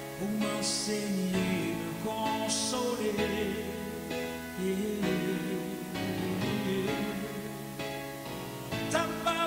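Gospel music: a song with singing over instrumental accompaniment.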